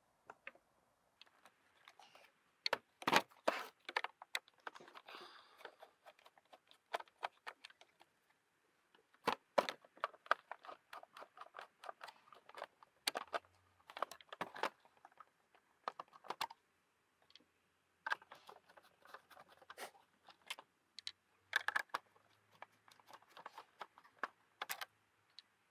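Irregular small clicks and taps of hand work on a Citroën DS instrument cluster: small screws being undone with a screwdriver and the plastic and metal housing being handled, with two short pauses.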